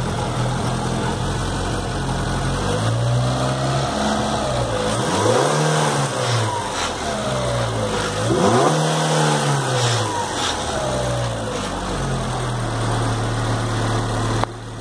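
Chevrolet 1.4 Econo.Flex four-cylinder engine idling, then revved twice, its pitch rising and falling each time, and settling back to idle. During the revs a vibration comes from the engine hoist and chain the engine hangs from, not from the engine, which is freshly rebuilt and running well.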